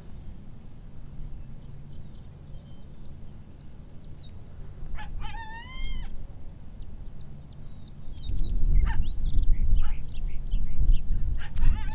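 A few short, wavering, high-pitched animal cries: one about halfway through, more near the end. A loud low rumble sets in a little past two-thirds of the way through, with a sharp click near the end.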